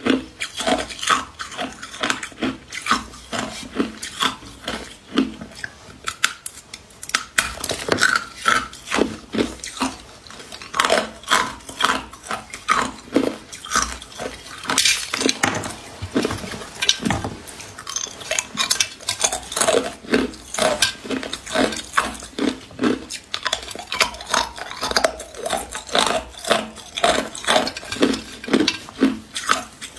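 Hard clear ice being bitten and chewed: sharp, crisp crunches and cracks, about two a second.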